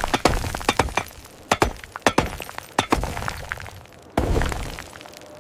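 Rapid, irregular series of sharp hits and clinks, several a second, then a sudden low rumble starting about four seconds in.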